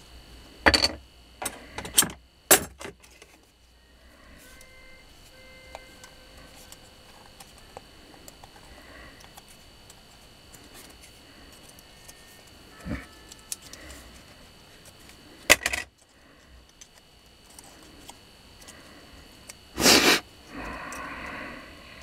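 Scattered clicks, taps and rustles of a bare motor armature and stiff insulating paper being handled, with a louder scraping rustle near the end.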